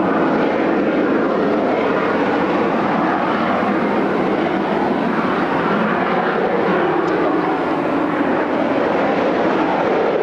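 Kawasaki T-4 jet trainers' twin turbofan engines rushing overhead, a steady jet roar with a slow pitch slide about two-thirds of the way through.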